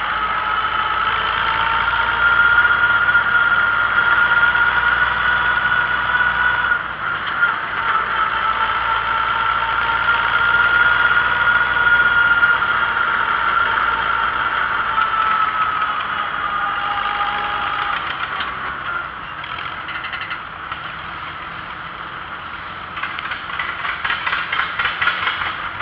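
Antique farm tractor engine running steadily on the road, heard from the tractor itself, with a high steady whine over it that wavers slightly in pitch. The sound eases a little about two-thirds of the way through and picks up again near the end.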